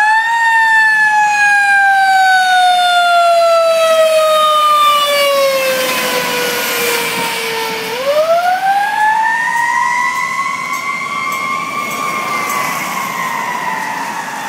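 Fire truck siren wailing on an emergency run. Its pitch falls slowly for about eight seconds, then winds back up about halfway through and starts another slow fall. A swell of passing-truck noise comes in around the middle as the tiller ladder truck goes by.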